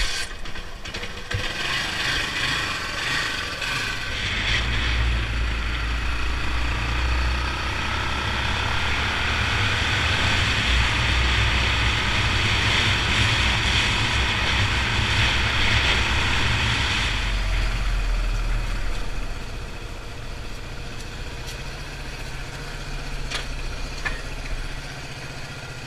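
1976 Honda XL175 single-cylinder four-stroke engine running while the bike is ridden, with loud wind rush on the helmet-mounted microphone through the middle. Near the end the wind fades and the engine settles to a lower, quieter running as the bike comes to a stop.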